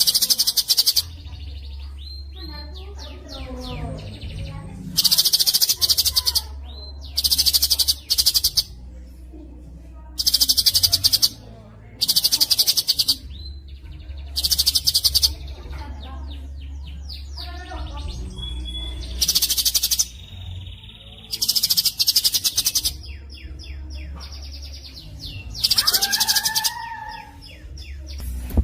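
A songbird singing a fast, dense song. About nine loud, rapid, very high trills, each about a second long, are separated by softer chirps and gliding whistles. A steady low hum runs underneath.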